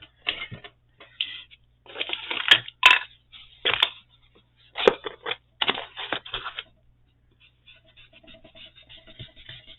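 Craft supplies being handled on a desk: clattering and scraping with a few sharp clicks. From about three-quarters of the way in, a fainter, rapid, even scrubbing follows, as an ink blending tool is worked over paper.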